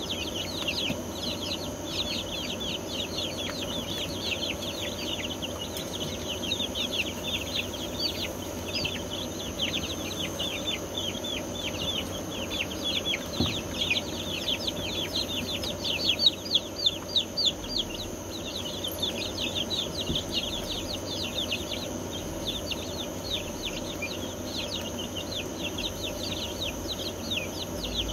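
A brood of young chickens peeping constantly, many quick falling chirps overlapping, with a steady high whine underneath.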